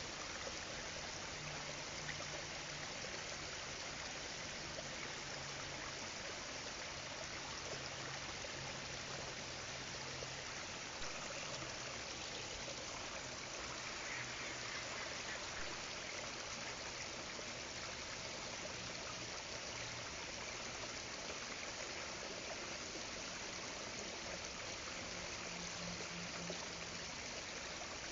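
Steady wash of rippling lake water, with no duck calls. A faint low hum comes and goes underneath.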